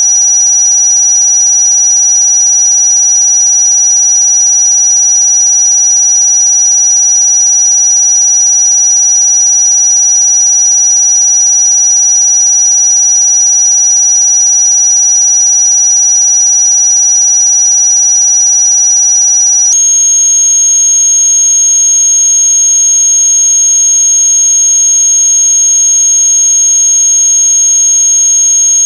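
Loud electronic tone track of steady synthetic tones, a shrill high tone over several fainter lower ones, held without a break. About twenty seconds in it switches abruptly to a different, slightly higher set of tones. It is a track made to be played against noisy neighbours.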